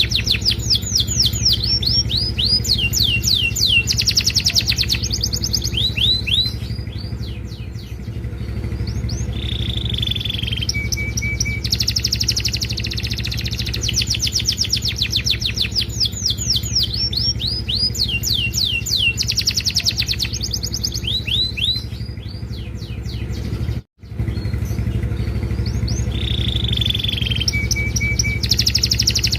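Domestic canary singing a long, varied song: fast trills of quick falling notes, a held whistle, then short chirps, the phrase sequence repeating, over a steady low hum. The sound cuts out for an instant about 24 seconds in.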